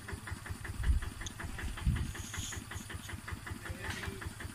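Two-wheel walking tractor's single-cylinder diesel engine chugging steadily at an even beat of about six to seven puffs a second. There are two louder low thumps about one and two seconds in.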